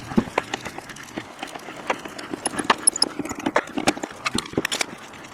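Car jack being wound down by hand to lower the car onto the refitted wheel: a run of uneven metallic clicks and knocks, a few each second.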